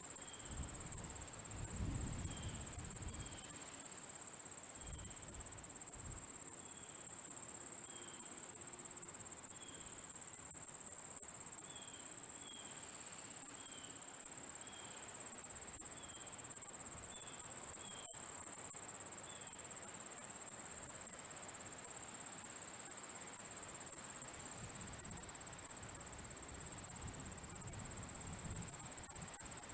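Summer insect ambience: a continuous high-pitched trill of crickets, with short high chirps repeating about once a second through the first two-thirds, and a faint low rumble near the start.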